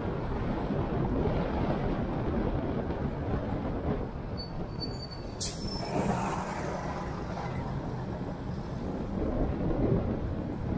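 Steady rumble of a car driving on city streets, its road and engine noise picked up by an action camera. A single sharp click comes about halfway through.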